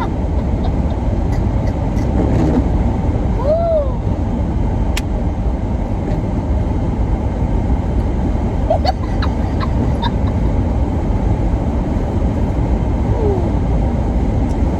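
Steady road and engine noise of a moving car heard from inside the cabin, with a couple of brief faint vocal sounds.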